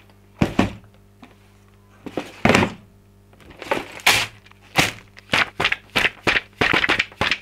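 Two heavy thuds a couple of seconds apart, then a rising whoosh, then a quick run of short papery flaps and rustles as a brick-set instruction booklet is flipped through over plastic parts bags.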